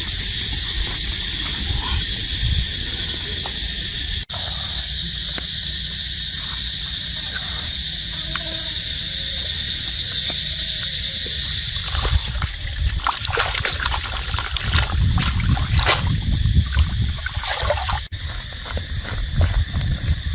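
Steady insect drone in the forest, with irregular splashing and sloshing of water from about twelve seconds in.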